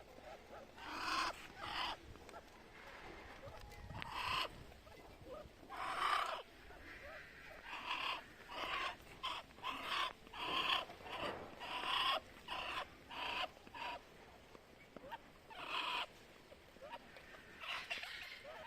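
Muscovy duck hissing: a string of short, breathy hisses, a few scattered at first, then coming about twice a second through the middle, then spaced out again near the end.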